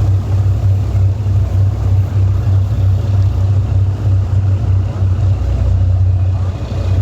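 A heavy engine running with a steady, loud low drone, slightly pulsing.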